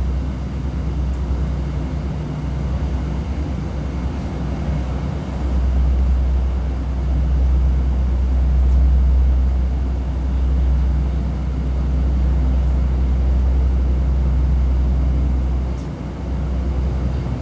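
Heavy construction machinery's diesel engine running steadily, a deep low rumble with a steady engine hum.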